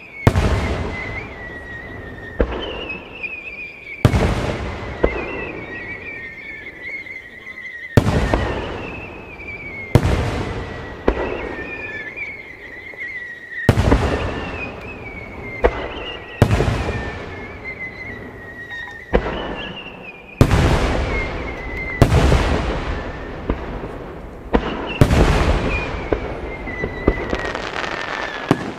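Japanese aerial fireworks shells bursting in a steady run, a sharp boom every one to three seconds, each trailing off in a fading echo.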